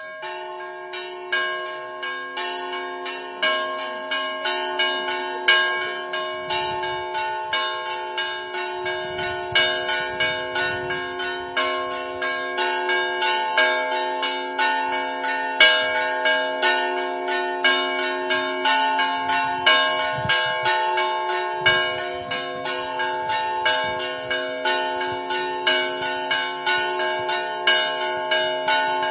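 Church bells of several pitches rung in a fast, unbroken peal. The strokes come two or three a second, and each bell is left ringing on under the next.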